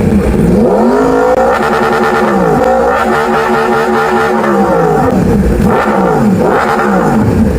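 Yamaha R1 inline-four sport bike engine being revved repeatedly, its pitch climbing and dropping several times as the throttle is blipped from idle.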